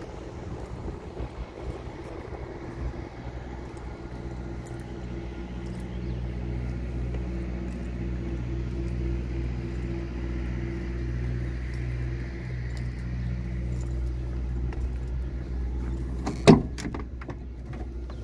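Scania P230 truck's diesel engine idling steadily. About sixteen seconds in there is a single sharp metallic clack, the loudest sound, as the cab door is opened.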